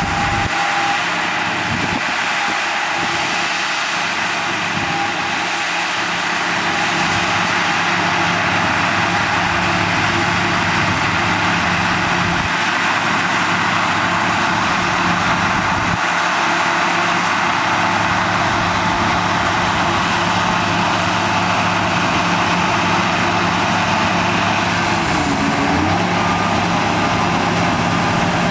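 Heavy diesel engine of earthmoving machinery running steadily, with a short dip and rise in pitch about 25 seconds in.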